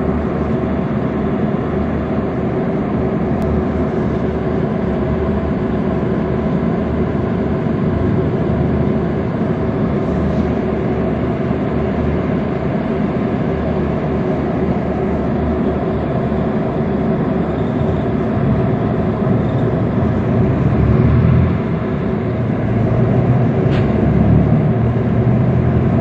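Storm-force wind roaring steadily and buffeting the microphone, with a faint steady drone running through it and gusting louder twice near the end.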